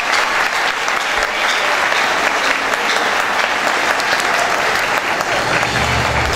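A crowd of wedding guests applauding steadily. Near the end, low music begins under the clapping.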